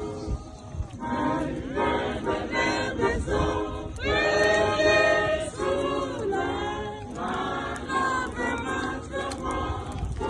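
A group of voices singing together, a choir, with held notes that shift in pitch from phrase to phrase.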